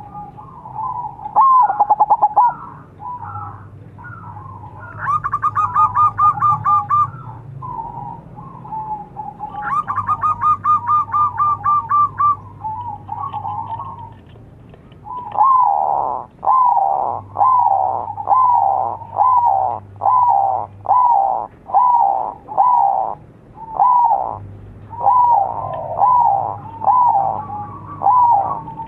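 Zebra dove (perkutut) cooing. It gives bursts of rapid, stuttering trilled notes, then from about halfway a regular run of short coos, about one a second.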